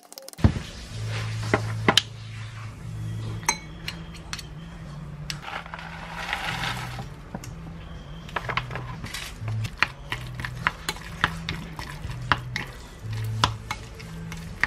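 A fork and spoon mashing and stirring steamed kabocha squash and boiled eggs in a ceramic bowl, with many sharp clinks and scrapes against the bowl.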